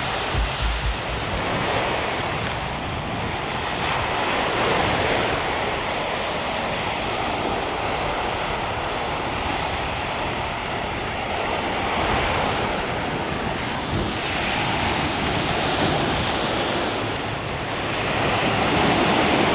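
Small waves washing onto a sandy beach, with wind buffeting the microphone; the wash swells and eases every few seconds.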